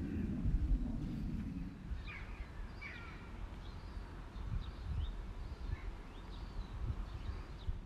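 Birds calling outdoors in a scatter of short chirps, over a low rumble that is strongest for the first couple of seconds.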